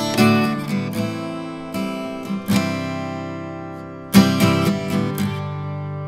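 Acoustic guitar strummed and picked in chords that ring out and decay, with a loud strum about four seconds in. It is a test recording made through a 1073-style microphone preamp.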